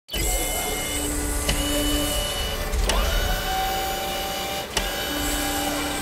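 Mechanical sound effects for an animated title: a small machine whirring steadily, like a printer mechanism. Three sharp clicks come through it, and there is a short rising whir about three seconds in.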